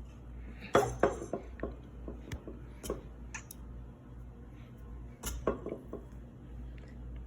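Harbor Breeze Armitage 42-inch ceiling fan running in reverse with a steady low hum, broken by irregular metallic clinks and clatter, loudest about a second in and again about five seconds in.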